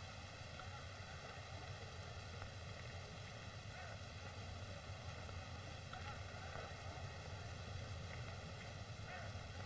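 Steady hiss with a low hum from an old 1930s film soundtrack, with no distinct sound events.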